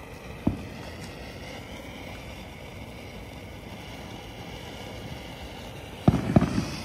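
Ground fountain firework spraying sparks with a steady hiss. A single sharp pop comes about half a second in, and a quick cluster of loud pops near the end.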